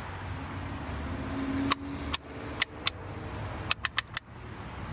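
A string of sharp clicks from crankcase-ventilation filter parts being snapped back into place by hand. There are four spaced clicks, then a quick run of four more near the end, over a steady low rumble.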